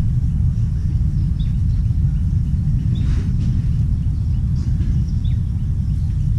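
A steady, loud low rumble with a few short, high bird chirps over it, about a second and a half, three and five seconds in.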